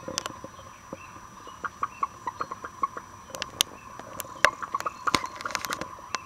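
Broody Rhode Island Red hen making short, clicky clucks in irregular runs that come thicker in the second half, over a faint steady hum.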